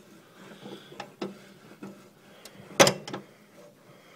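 Scattered clicks and knocks from a homemade double-pulley belt clutch as the clutch pedal is worked, its linkage and idler pulley moving, with one louder knock just under three seconds in.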